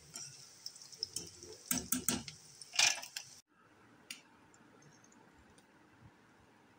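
Battered potato pieces deep-frying in hot oil in a kadai, with a steady sizzling hiss and a few sharp clicks and clinks of the steel spatula against the pan, the loudest near the three-second mark. The frying sound cuts off abruptly about three and a half seconds in, leaving only a faint hiss.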